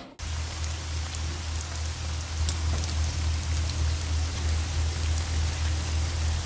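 Steady rain falling, with faint scattered drop ticks and a steady low hum underneath; it begins abruptly at the start.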